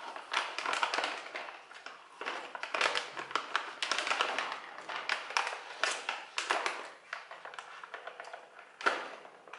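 A foil-lined Lay's crisps bag crinkling as it is held and cut open with scissors, in dense, irregular crackles and snips.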